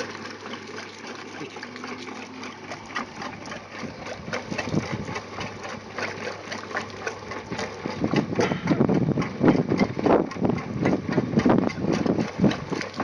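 Small diaphragm water pump running on test after its faulty valve was fixed: a fast, steady clatter that grows louder about eight seconds in.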